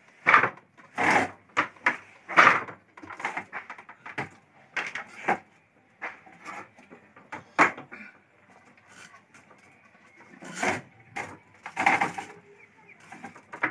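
Wooden handloom working: irregular wooden knocks and clacks as the weft is passed by hand and the beater is pulled in against the cloth.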